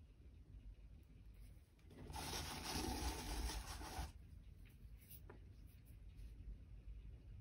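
A painted board sliding and scraping across a cutting mat as it is turned by hand, a rubbing sound lasting about two seconds, followed about a second later by a faint tap.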